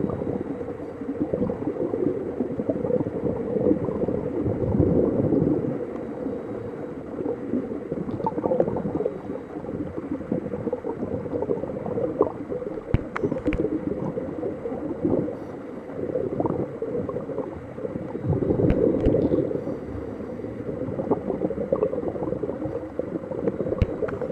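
Muffled underwater gurgling of a scuba diver's regulator breathing and exhaled bubbles, swelling and fading every few seconds, with a few sharp clicks.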